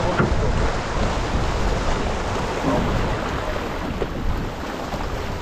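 Wind buffeting an on-board microphone over the rush of water along the hull of a Farr 280 racing sailboat sailing under spinnaker at about five knots, as a steady noise with no engine.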